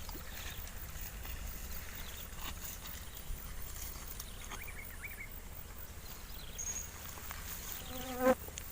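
Quiet forest ambience: a steady low background hum with faint scattered clicks and a few faint falling chirps. A short pitched call comes near the end.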